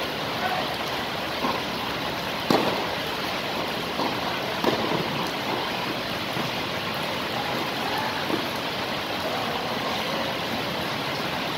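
Tennis ball struck by rackets during a doubles rally: a few sharp, widely spaced hits, the loudest about two and a half seconds in, over a steady hiss.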